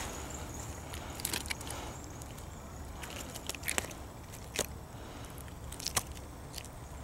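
Close handling noise: scattered light clicks and rustles as a senko soft-plastic worm is handled on the hook, with a few sharper ticks, over a low steady rumble.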